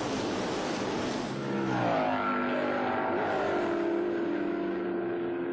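A pack of sports-racing car engines running at speed. About a second and a half in, one engine's pitch dips and climbs as it passes, then holds a steady note over the rest of the field.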